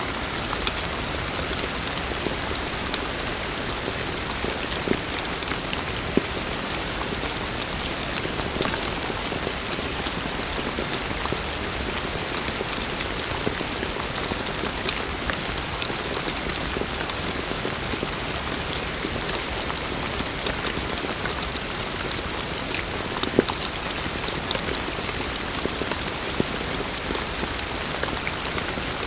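Heavy rain falling steadily, a dense even hiss with many small drop clicks through it. Now and then a single louder drop hit stands out, the loudest about three-quarters of the way through.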